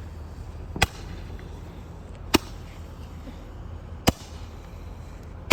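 Fireworks going off: four sharp bangs, evenly spaced about a second and a half apart.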